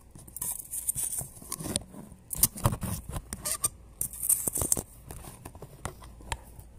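Handling noise as a phone camera is propped up on the floor: irregular rubbing, scraping and knocks close to the microphone, the loudest knock about two and a half seconds in.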